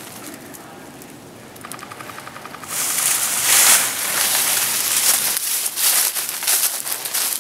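Footsteps crunching and shuffling through dry fallen leaves, starting loudly about three seconds in as the walker moves quickly, with rustle from the camera being carried. Just before, a brief fast rattle of ticks.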